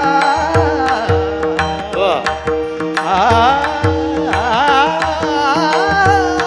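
Warkari bhajan music: a singer's wordless, gliding vocal line over a steady held drone, with the mridang's deep bass strokes and sharp beats keeping the rhythm.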